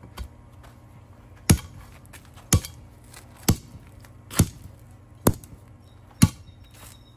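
Six sharp knocks, spaced about a second apart, starting about a second and a half in.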